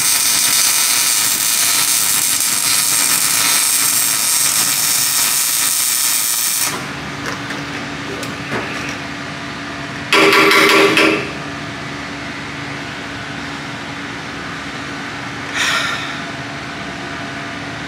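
Shop power-tool work on sheet metal: a loud, steady hiss for the first six or seven seconds, then a short burst of a power tool about ten seconds in and a briefer one near sixteen seconds. A steady machine hum runs underneath throughout.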